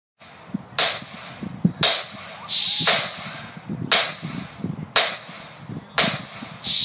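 Sharp, bright clap-like percussion hits, about one a second, setting the beat at the start of a song's backing track.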